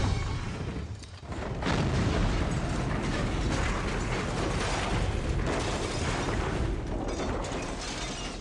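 A car crashing as it tumbles down a hillside, with a long run of metal crashing and clattering noise. A brief lull comes about a second in, and the noise thins slightly near the end.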